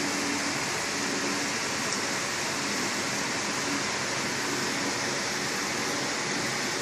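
Meiko EcoStar 530F front-loading commercial dishwasher running, a steady hiss of water spraying inside the cabinet, with a faint low hum that comes and goes.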